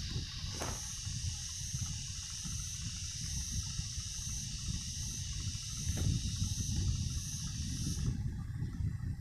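Steady high-pitched hiss over a low rumbling noise, picked up through a phone's microphone, with a couple of soft bumps.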